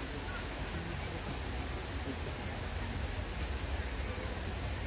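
Steady high-pitched insect chorus buzzing without a break, over a low steady rumble.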